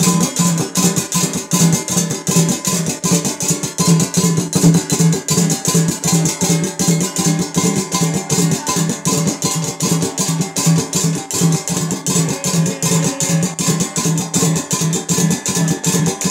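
Kirat Rai ritual music: a drum beaten in a fast, even rhythm, with a high metallic jingle running over it.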